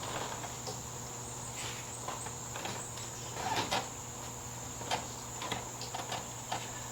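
Crickets trilling, a steady high-pitched drone, with scattered faint clicks and rustles.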